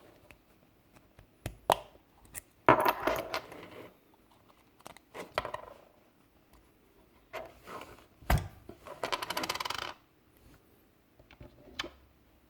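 Small plastic and metal clicks and clatters of a Mercedes key fob being taken apart and its CR2025 coin cell battery handled on a hard surface, ending in a quick rattle of about a second, like a coin settling, nearly two-thirds of the way through.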